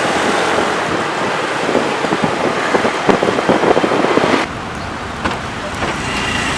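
Wind buffeting the microphone, crackling heavily over road traffic noise, as if the recorder is moving fast alongside the traffic. The wind noise cuts off suddenly about four and a half seconds in, leaving the steadier traffic din.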